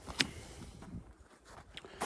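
A sharp knock a moment in, then a fainter click near the end.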